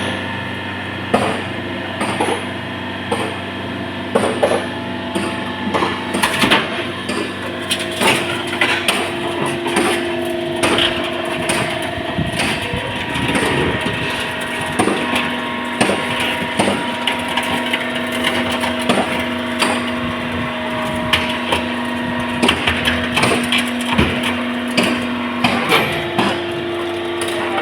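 Hydraulic car baling press at work: a steady pump hum that shifts pitch a couple of times, under many irregular cracks, snaps and knocks of scrap car body metal being crushed.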